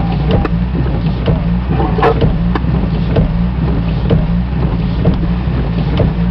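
Steady low engine drone with light clicks and rattles scattered over it.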